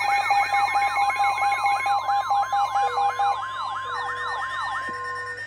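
Several electronic weather-alert alarms sounding at once: a rapid rising-and-falling siren sweep at about three to four cycles a second, a fast pulsing beep, steady high tones and short low beeps. In the last two seconds they drop out one by one. These are weather alert radios going off for a severe thunderstorm warning.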